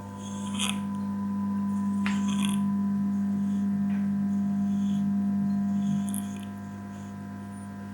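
Cat snoring in its sleep: short hissy breaths every couple of seconds, under a steady low hum that comes up about half a second in and fades away around six seconds in.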